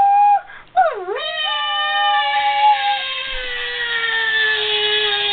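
Two people's voices imitating cats with long, drawn-out yowling meows. About a second in, a cry swoops down and back up. Two cries then overlap, one held steady and the other slowly sliding lower.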